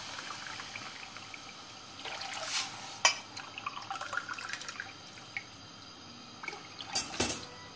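Tap water running into a drinking glass and being poured into a steel pot of sugar, adding water for a sugar syrup. A sharp click about 3 s in and a louder pair of knocks near the end, the glass meeting the pot or tap.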